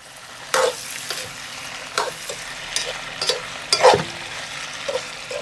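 Chicken sizzling as it fries in a hot pan, stirred with a utensil that scrapes and knocks against the pan several times at an uneven pace. The loudest knock comes a little under four seconds in.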